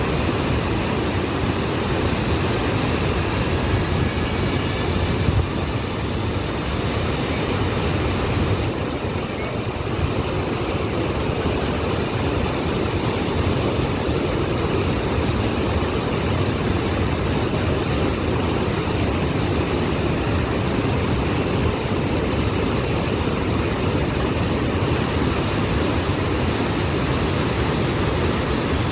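Waterfall, a steady loud rush of falling water. The highest hiss thins out from about nine seconds in until near the end.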